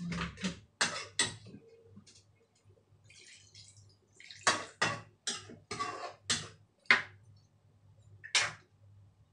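Metal ladle clinking and scraping against a frying pan of simmering coconut curry, in a run of sharp knocks. About four seconds in, water is poured into the pan from an electric kettle.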